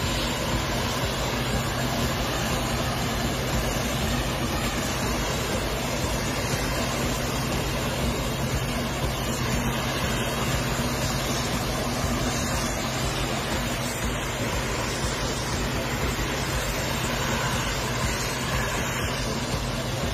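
Self-propelled forage harvester running under load while chopping standing maize: a steady low engine hum under a constant rushing noise.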